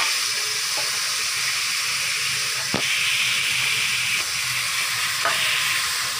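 Steady sizzling hiss from a pot on a gas stove as soaked rice is tipped into it from a steel bowl, with three metal clinks of the bowl against the pot, the sharpest about halfway through.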